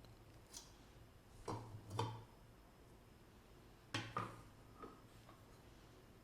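Light clicks and knocks of small kitchen tools being handled and set against a bowl, a handful of them in small clusters.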